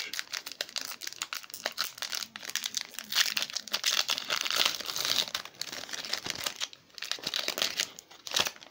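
Foil wrapper of a Pokémon Steam Siege booster pack crinkling and tearing as it is pulled open by hand: a dense crackle, loudest in the middle, with a brief lull and a sharp snap near the end.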